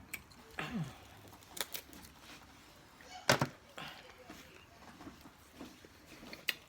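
Crab legs being cracked and picked apart while eating: scattered small clicks and snaps of shell, with one loud sharp crack about three seconds in.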